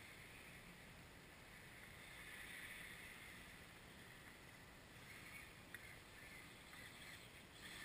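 Near silence: a faint background hiss that swells softly a few times, with one tiny click.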